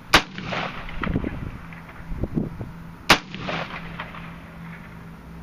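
DPMS AR-15-style rifle in .223 firing two shots about three seconds apart, each sharp crack followed by echoes.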